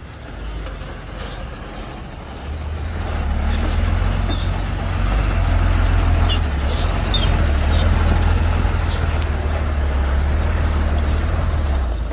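Heavy diesel engine of earthmoving machinery running with a low drone, growing louder about two and a half seconds in and holding there, with a few short high squeaks in the middle.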